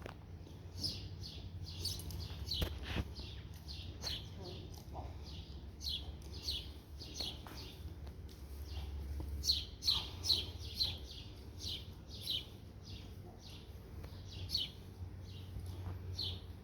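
Small birds chirping over and over, short falling chirps about one to two a second, over a steady low background rumble.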